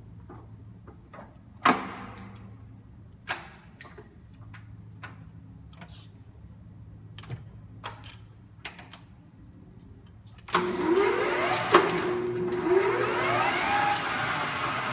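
Cadillac 14" x 28" geared-head engine lathe: several sharp clicks and knocks over a low steady hum, then about ten seconds in the spindle starts up loudly, its headstock gearing whining upward in pitch, twice in a row.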